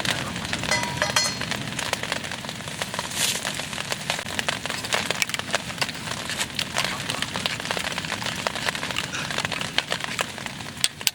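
Rain pattering, a dense, irregular crackle of many small drops that keeps on steadily, with a few louder ticks here and there.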